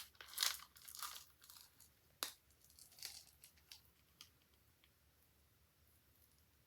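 Slime being worked by hand: a handful of short, irregular crackling pops and sticky tearing sounds that die away about four seconds in.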